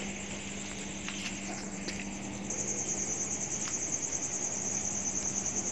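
A cricket trilling in a fast, even pulse, louder from about halfway through, over a steady low hum.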